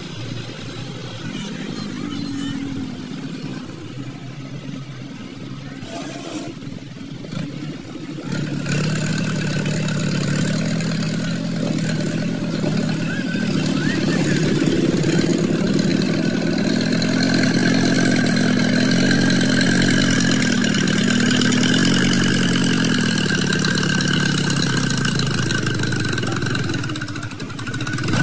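Mahindra Arjun 555 DI tractor's diesel engine labouring as it pulls a heavily loaded trolley. The engine is faint at first and gets much louder about eight seconds in, its pitch wavering up and down under load, with a brief dip just before the end.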